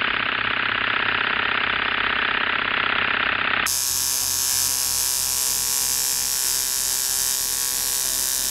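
Electric hair clipper running with a steady buzz while synthetic hair is fed into its freshly sharpened blade to test the cut.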